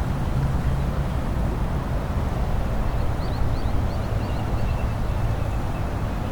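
Steady low rumble of traffic on a nearby expressway spreading across an open rice paddy. About halfway through, a run of short, high, rising chirps, followed by a string of evenly repeated higher notes, from an animal caller, likely a bird.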